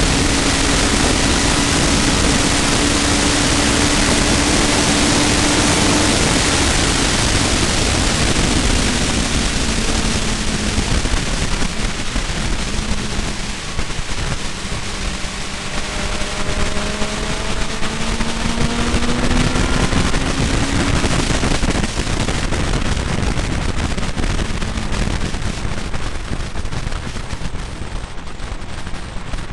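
Car at speed on a race circuit: a heavy hiss of wind and road noise over the engine, whose note holds steady, drops about six seconds in, then climbs again through the middle as the car accelerates.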